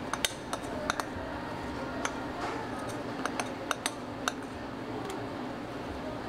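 Scattered sharp clinks of utensils against dishes, about nine light taps in the first four and a half seconds, then none, over a steady low background hum.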